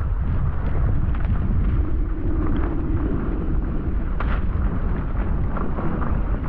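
Wind buffeting the microphone of a GoPro action camera as a loud low rumble, with many short scrapes and knocks of skis and gear over thin snow mixed in.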